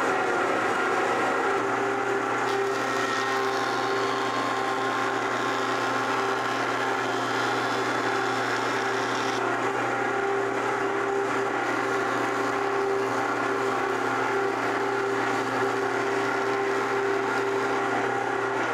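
Late-1980s Grizzly 8-inch jointer running steadily at speed on its freshly installed knives, a loud even machine hum with a brighter hiss for several seconds near the start.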